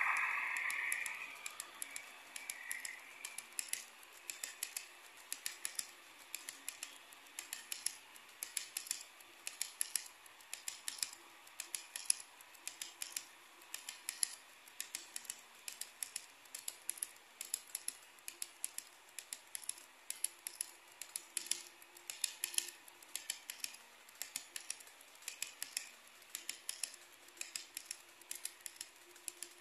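Model freight train's hopper cars rolling past on model track, their metal wheels clicking over the rail joints several times a second in an uneven rhythm. A louder sound from the passing locomotives fades away over the first second or two.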